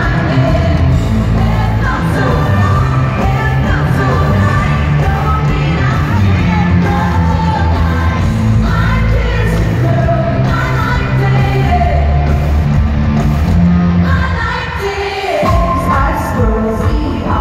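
Live pop music at an arena concert: a woman singing over the amplified band, with a heavy bass. About fifteen seconds in, the bass drops out for a moment, then comes back in.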